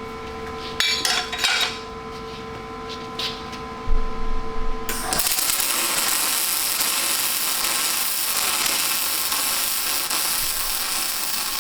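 An arc welder welding a steel end piece onto a 3-inch steel C channel. A few metal clinks over a steady hum come first, then about five seconds in the arc strikes and holds a steady, even hiss.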